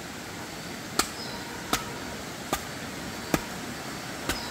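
Machete chopping into a log to split it for firewood: five sharp strikes, a little under a second apart.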